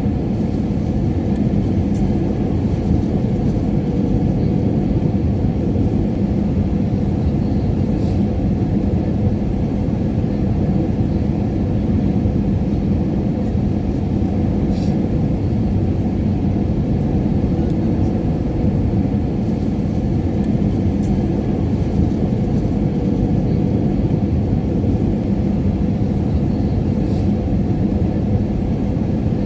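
Steady jet airliner cabin noise: an even, unbroken low rumble of engines and airflow with a faint steady hum under it.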